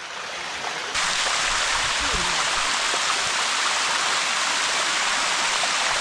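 Water rushing down the rock cascades of the Bua Tong 'Sticky' Waterfall, a steady full-bodied rush that grows louder about a second in and then holds even.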